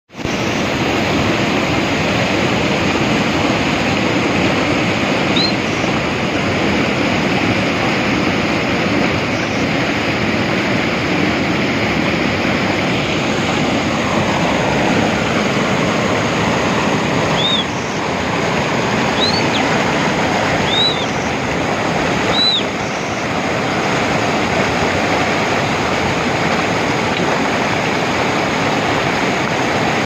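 Mountain stream rushing and splashing over boulders in a steady, loud roar of white water. A few short high chirps sound faintly over it, mostly in the second half.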